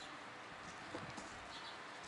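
Faint handling sounds of an Isuzu 4JA1 piston being turned over in gloved hands: two light knocks about a second in, over a steady background hiss.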